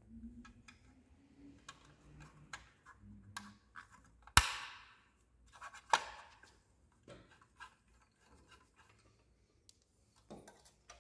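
Belt cover being handled and fitted onto an industrial sewing machine head: scattered light clicks and scrapes, with two sharper knocks about four and six seconds in.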